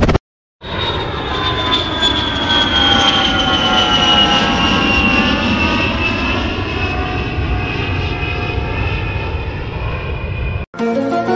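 Jet airplane engines passing by: a loud rush with a high whine that slowly falls in pitch, starting after a brief gap and cutting off suddenly near the end.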